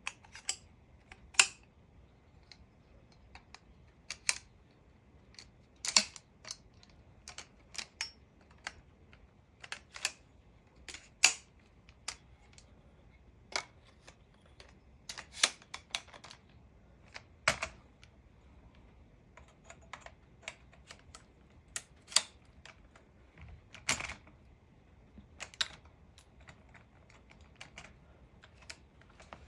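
Metal telescopic pole segments being fitted together by hand: irregular sharp clicks and clinks, one or two a second, some of them loud, as the tubes slide into one another and their spring buttons and joints are worked.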